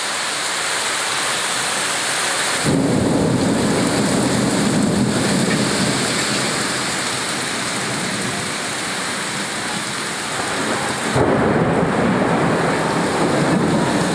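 Heavy rain pouring down in a steady hiss, with deep rumbles that set in suddenly about three seconds in and again near the eleventh second.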